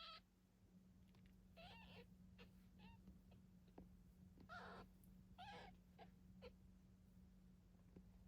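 Nine-day-old kittens mewing: several short, high, squeaky cries at irregular intervals, over a steady low hum.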